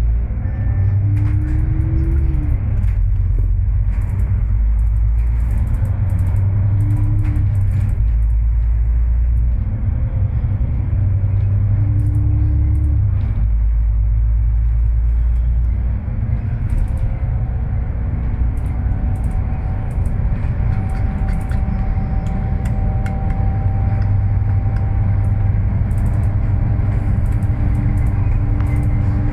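Double-decker bus heard from its upper deck: a loud, steady low rumble of engine and road, with a short rising whine three times in the first half and a steady whine held through the second half as it runs along at speed.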